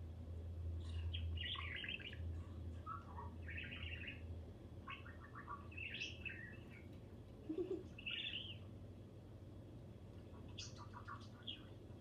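Pet budgerigar chirping in short, irregular calls, with a low hum underneath in the first few seconds.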